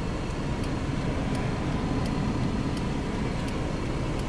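Steady hum of a car idling in traffic, heard inside the cabin, with a light tick a little faster than once a second from the turn-signal indicator.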